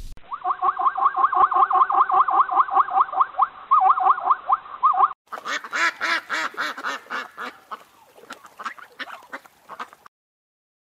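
For about five seconds, a fast, even run of repeated quack-like animal calls, about six a second. After a sudden cut, a string of Canada goose calls that thins out and stops shortly before the end.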